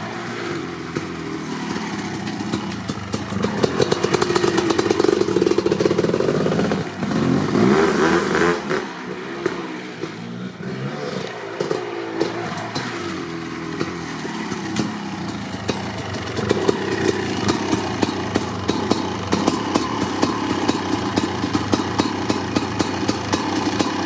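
1990 Kawasaki KX500's 500cc single-cylinder two-stroke engine with an FMF Gnarly expansion chamber, revving up and down hard, then dropping to a low, even, popping idle over the last several seconds.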